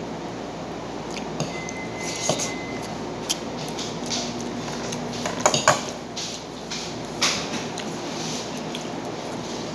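Fingers picking food off a ceramic plate, with light clinks and scrapes against the plate over a steady background hiss; a quick run of sharper clinks comes about five and a half seconds in.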